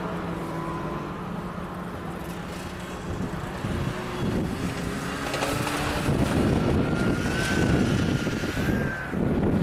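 Several snowmobile engines running at low speed as the machines pass one after another. From about five seconds in, gusts of wind buffet the microphone and cover them.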